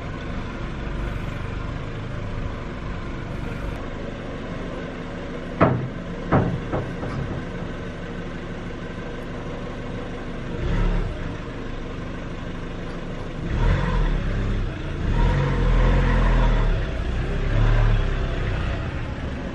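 Car engine running at low speed, heard from inside the cabin, with two sharp knocks about six seconds in. The engine grows louder for a few seconds near the end.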